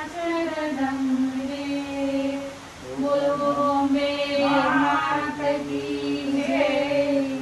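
People singing a Hindu devotional chant in long, drawn-out held notes. A higher voice leads, with a lower voice joining about three seconds in.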